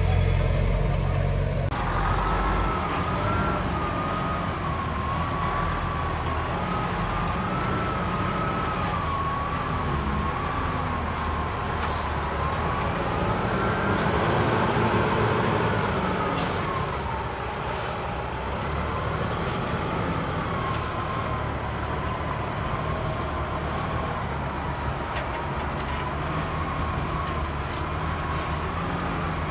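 Heavy earthmoving machine's diesel engine running, with a thin wavering whine over its rumble. The whine rises and swells about halfway through, then settles, and faint clicks and clanks come and go.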